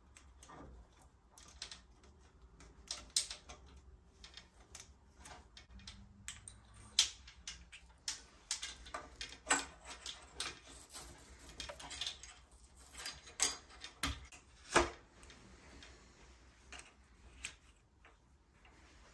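Irregular light clicks and clinks of bicycle headset parts, the top bearing, expansion ring, bearing cover and stack of headset spacers, being slid down a fork steerer and seated by hand. The sharpest clicks come a little past the middle.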